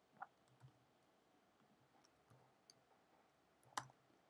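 A handful of faint, scattered clicks from computer keys or a mouse, with a sharper click near the end, over near silence.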